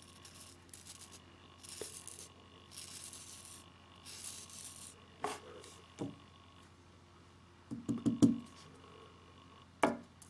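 Sharpness test of a tanto fixed blade: four short, dry hissing strokes as the edge shaves forearm hair and slices paper, followed by sharp clicks and a run of loud knocks about two-thirds through and again near the end as the knife is handled and set down on the table.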